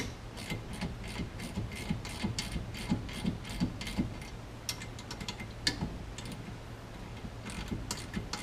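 Hand ratchet clicking in quick, regular strokes as shoulder bolts are backed out of a steering wheel hub. The clicks come several a second for about four seconds, then thin out to scattered ticks.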